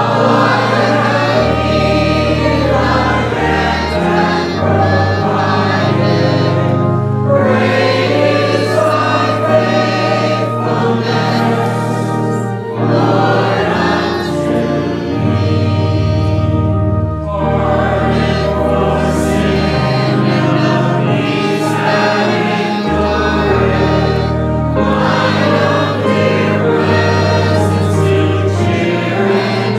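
Choir singing with instrumental accompaniment; long held bass notes change every second or two beneath the voices.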